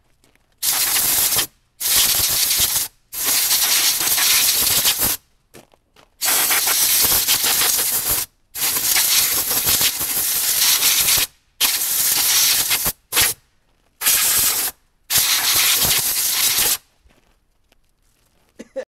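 Compressed-air blow gun hissing in about nine hard blasts of one to two seconds each, with short gaps between, blowing dust out of a mini excavator's engine compartment.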